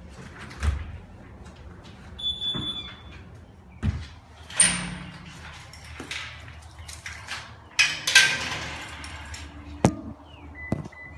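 Scattered knocks and clatter with a few short electronic beeps: a steady high beep about two seconds in and a run of quick beeps near the end.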